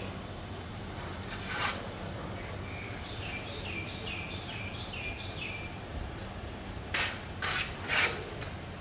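Steel plastering trowel scraping wet mortar: one scrape about a second and a half in, then three sharp scrapes in quick succession near the end as mortar is scooped from a bucket. In between, a small bird chirps a quick run of short calls.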